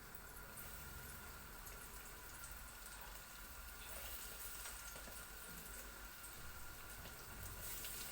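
Dough-wrapped sausage rolls deep-frying in hot vegetable oil: a faint, steady sizzle that grows a little louder in the second half.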